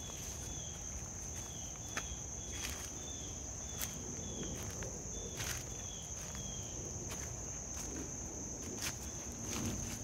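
Footsteps crunching through dry leaf litter and twigs, with a scattering of sharper snaps. Under them a steady high-pitched insect chorus and a repeated short falling chirp.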